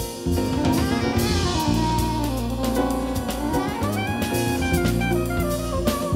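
Live jazz fusion quintet: a soprano saxophone plays a winding, gliding melody over drum kit, electric bass, electric guitar and keyboard.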